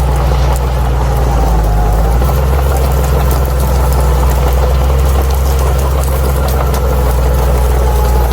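Bulldozer's diesel engine running steadily under load, with a thin steady whine above the engine note and faint clicking.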